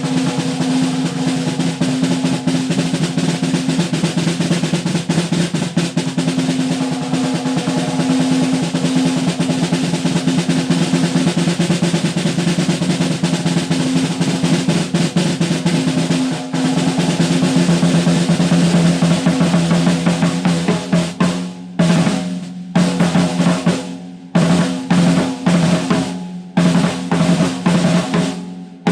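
Tama Starphonic Metal 14x6 snare drum with an Evans 360 heavyweight batter head, played in a long fast roll that rings at a steady low pitch. About two-thirds of the way in the roll breaks into separate sharp hits and short fills with gaps between them.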